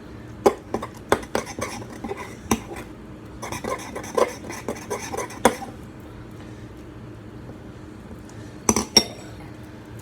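Sticky glue slime being worked by hand in a bowl, a string of sharp clicks and knocks against the bowl for about five seconds, then two quick clinks near the end. The slime is still sticky and under-activated.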